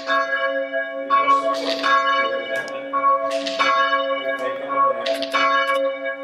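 Church bell being chimed by rope, struck again and again, each stroke's ring overlapping the next.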